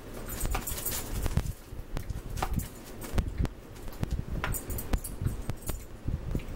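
Eating sounds: a metal fork clicking and scraping in a plastic food tray, with chewing, as a string of small clicks and knocks and a couple of brief bright jingles.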